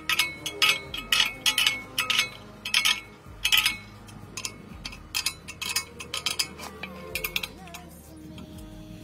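Steel spanner clinking against a brass fitting as it is screwed into an air compressor tank: a quick, irregular run of sharp metallic clinks that thins out after about four seconds.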